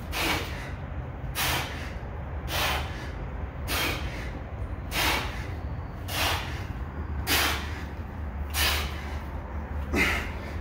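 A man breathing out hard and hissing through his mouth on each bench-press rep, one sharp breath about every 1.2 seconds, nine in all, over a steady low hum.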